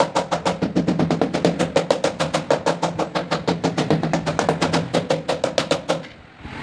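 Rubber mallet tapping a large ceramic tile down into its mortar bed, in rapid, even knocks of about eight a second that stop about six seconds in.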